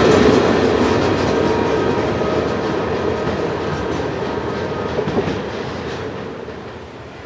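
Loaded taconite ore hopper cars rolling past on the rails, the sound fading steadily as the end of the train moves away.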